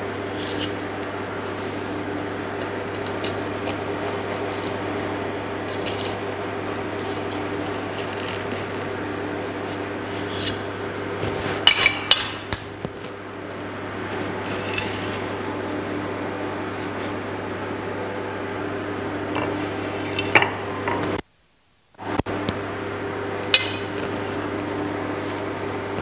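A metal knife and cake server cutting and lifting a slice of lattice quince tart, with scattered scrapes and clinks of metal against the tart's metal base and the plate, most of them in a cluster near the middle, over a steady low hum. The sound cuts out completely for a moment about two-thirds through.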